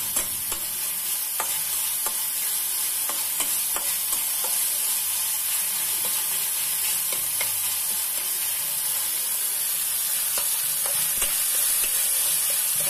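Chopped tomatoes and onions sizzling in oil in a kadhai, a steady high hiss, while a spatula stirs them, scraping and tapping against the pan in frequent irregular clicks.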